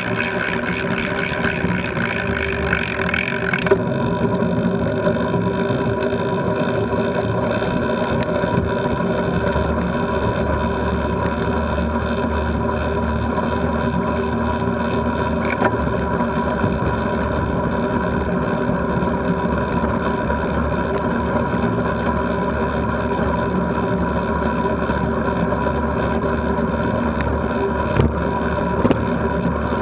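Steady wind and road drone on a bicycle-mounted action camera riding at about 20 mph, a constant rushing hum with no change in pitch.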